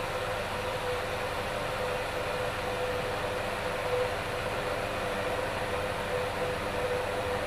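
Stovetop whistling kettle at the boil: a steady hiss of steam with a low, steady whistle tone over it.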